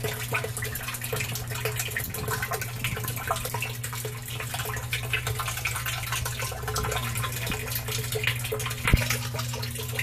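Water from a hose pouring and splashing into a tub of water, with a steady low hum underneath. One knock sounds near the end.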